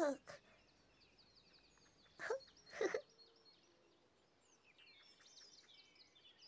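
Faint birdsong: many short, high chirps, with two brief louder pitched sounds about two and three seconds in.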